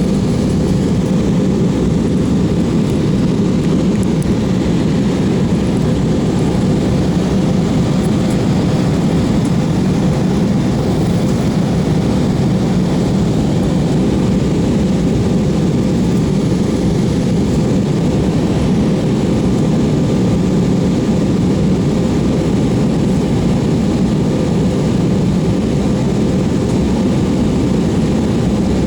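Steady, unbroken engine and airflow noise inside an airliner's passenger cabin during the descent, heaviest in the low range and with no change in level.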